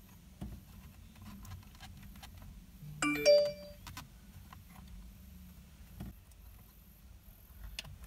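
A brief, loud chime-like burst of several clear tones about three seconds in, over light clicks and rustling from handling a steering-wheel airbag module.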